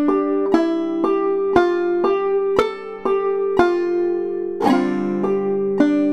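Clawhammer banjo playing a double-thumbing walk-up line, single notes struck on the 1st string and alternated with the open 5th string, about two notes a second. About two-thirds of the way through it turns to fuller brushed bum-ditty strums.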